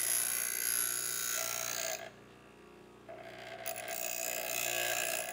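Ryobi bench grinder running, its motor humming steadily while the steel blade of garden loppers is ground against the wheel with a high, ringing grinding hiss. The grinding drops out for about a second around two seconds in while the motor hum carries on, then resumes.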